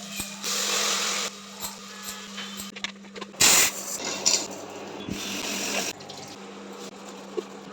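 Kitchen cooking sounds: several bursts of hissing, splashing noise, the loudest about three and a half seconds in, over a steady low hum.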